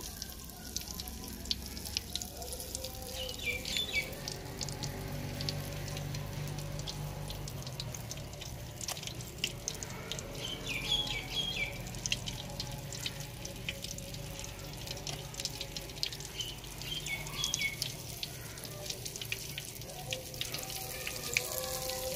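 Flour-coated chicken drumsticks deep-frying in hot oil in an aluminium pot: a steady sizzle with a constant fine crackle.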